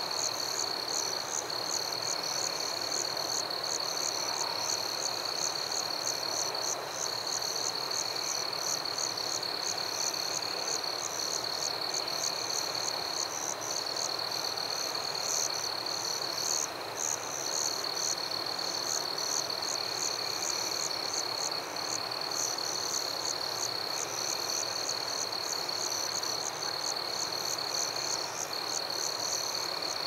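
Night chorus of calling frogs and insects: a steady high trill that breaks off briefly every few seconds, over rapid repeated high chirps and a soft, even hiss.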